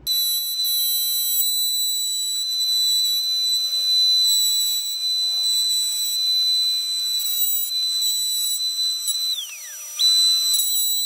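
Table-mounted router spinning a bearing-guided flush-trim bit, cutting a thick pine board to a template: a loud, steady high whine. About nine seconds in, the pitch drops steeply, then jumps back up about half a second later.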